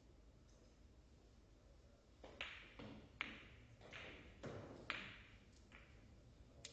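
Carom billiard balls on a 5-pin table: a cue strike, then a run of about seven or eight sharp clicks and duller knocks over some four seconds, starting about two seconds in, as the balls hit each other and rebound off the cushions.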